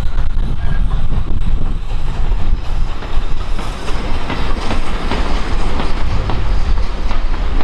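Vintage goods wagons and a Southern Railway brake van rolling past, their wheels clicking irregularly over the rail joints over a steady low rumble.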